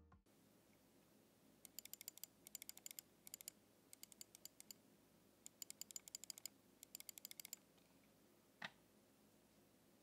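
Faint runs of quick, even ticking from a computer mouse's scroll wheel being rolled: six short bursts of rapid clicks, then one soft knock near the end.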